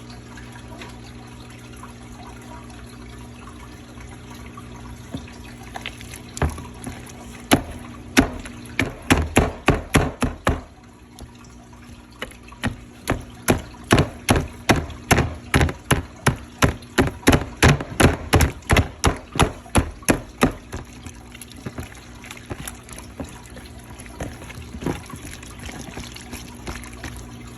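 Slime being kneaded and squeezed by hand: runs of wet squelching clicks at about four a second, with a short break between a first run and a longer second one.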